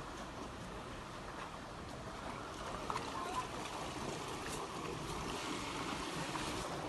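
Steady rush of flowing stream water, with a few faint knocks about three seconds in.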